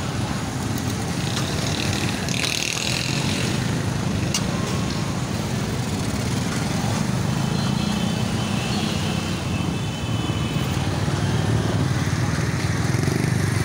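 Busy street traffic: a steady rumble of motorcycle and car engines running and passing, with a few faint higher tones and clicks over it.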